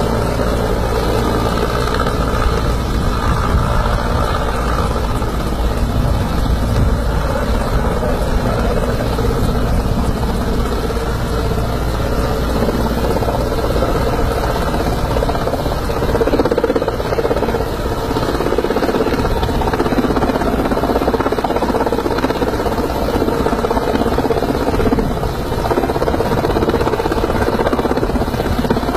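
A steady, loud engine drone with a deep rumble and no let-up.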